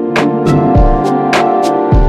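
Background music with a steady drum beat and sustained instrument notes.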